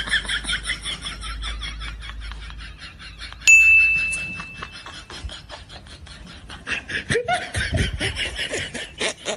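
Laughter in quick, even pulses, with a single bright ding about three and a half seconds in that rings and fades over about a second and a half.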